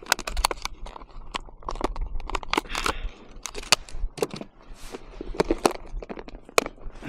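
A run of irregular sharp clicks and crunching crackles, uneven in strength, over a low rumble.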